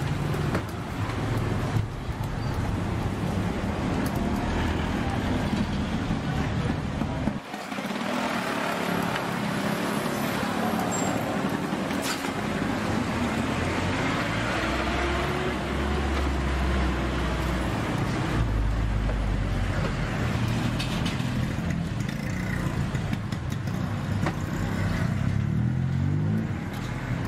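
Busy street-market ambience: a steady low engine and traffic drone with a background wash of noise.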